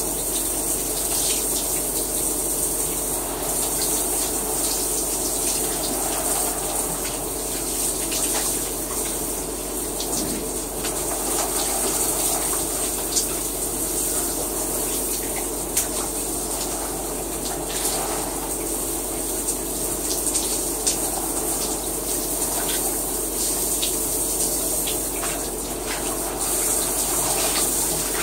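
Shower running: a steady spray of water that goes on without a break.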